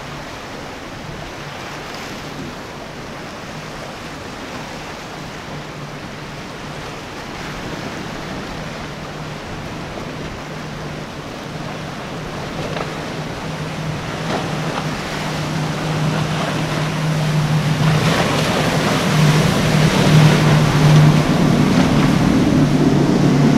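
Powerboat engines running with a steady hum over the rush of waves and spray. The sound grows louder over the second half.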